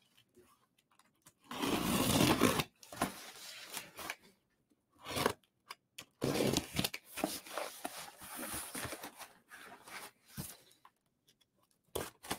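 A large cardboard shipping box being torn open: a loud ripping about a second and a half in, then a run of short scrapes, crinkles and rustles as the flaps and packing are pulled apart.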